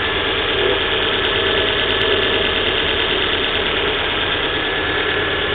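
Volvo V40 1.6 engine idling steadily from cold, heard up close in the engine bay, with the odd noise that the owner hears shortly after a cold start and is trying to trace around the recently changed timing belt.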